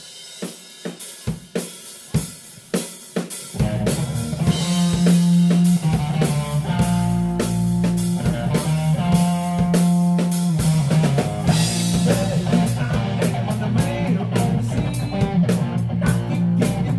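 Live rock band: the drum kit opens alone with a few separate hits, then bass and electric guitars come in about three and a half seconds in and the full band plays an instrumental groove with a steady drum beat.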